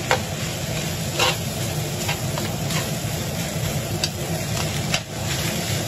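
Salmon fried rice sizzling in a stainless-steel frying pan as a metal spoon stirs it, with several sharp clicks of the spoon knocking against the pan.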